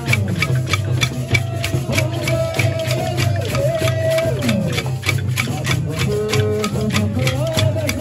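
Bumba meu boi toada in the matraca style: a lead singer sings a wavering melody into a microphone over a fast, steady clatter of matracas (wooden clappers), the deep beat of pandeirões (large frame drums) and the shake of a metal maracá.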